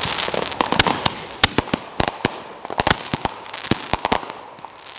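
Consumer firework cake firing: a rapid, irregular string of sharp bangs and pops, with crackling between them.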